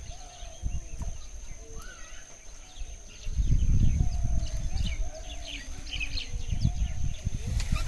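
Outdoor rural ambience with birds chirping and a low rumble that swells from about three seconds in.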